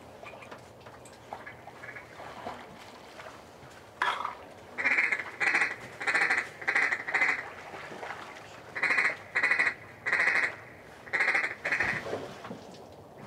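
Loud duck quacks in two runs of about five, each quack about half a second apart, beginning about four seconds in and ending near the end.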